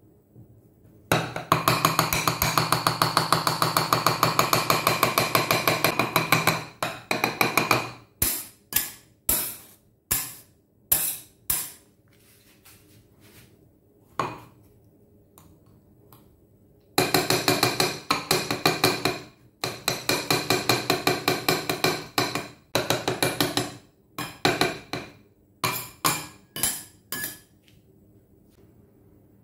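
Kitchen knife chopping cooked eggplant and then tomato on a hard stone board: fast runs of sharp knocks lasting several seconds, with single strikes and short groups between.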